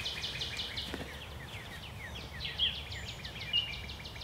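A small songbird singing rapid trills of dry chip notes, about nine notes a second: one trill ends about a second in and another begins shortly after and runs on.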